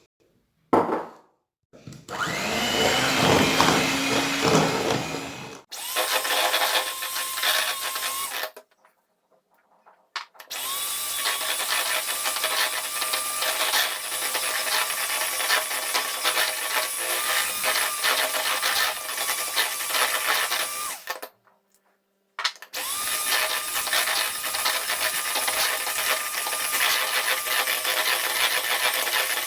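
Electric hand mixer running steadily with a motor whine, its beaters whipping butter, sugar and eggs into a creamy batter. The running is split into several takes by brief silent gaps.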